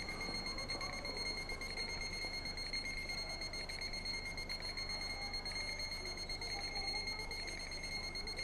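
Room tone with a steady high-pitched electrical whine and a constant low hum.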